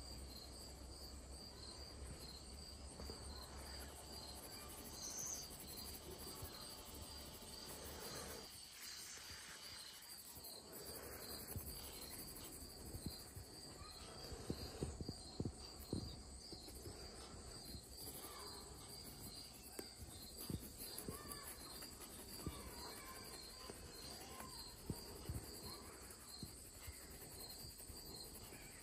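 Faint graphite pencil shading on paper: soft scratching with scattered light taps and clicks, more of them in the second half. A steady high-pitched chirp repeats evenly about one and a half times a second underneath.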